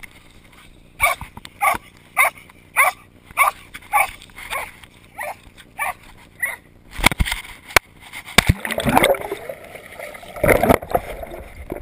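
A dog barking about ten times at an even pace, a little under two barks a second. Then a few sharp knocks and water splashing and gurgling as the camera goes under the water.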